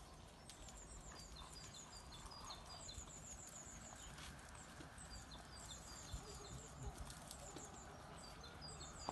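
Small songbirds singing faintly: phrases of quick, high chirping notes, repeated with short pauses, over faint outdoor background noise.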